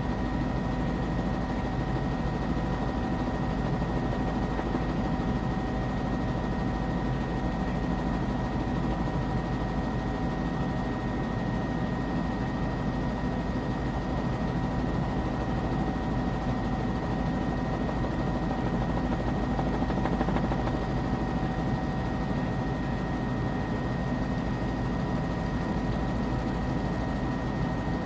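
Steady drone of a news aircraft's engine, heard from on board during flight, with a few steady humming tones over constant noise.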